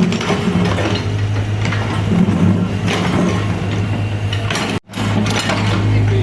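Excavator's diesel engine running steadily, with repeated metallic clinks and knocks from the working machine. The sound drops out for an instant about five seconds in.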